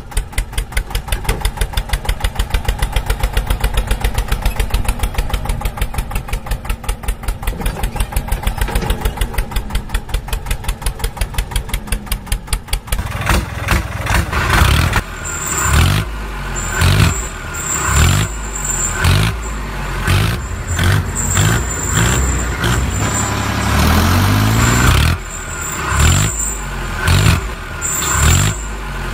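Tractor engine sound effect laid over the toy scene: a diesel tractor chugging at a fast, even beat, then from about thirteen seconds in revving up and down over and over as if straining under load.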